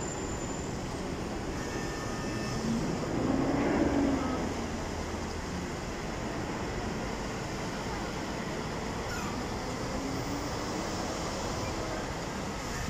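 Steady road traffic noise, with a vehicle passing loudest about three to four seconds in.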